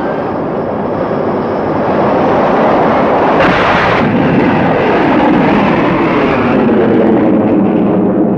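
F-4 Phantom II jet fighter's engines running at full afterburner during a carrier catapult launch, a loud continuous jet noise with a sudden louder surge about three and a half seconds in.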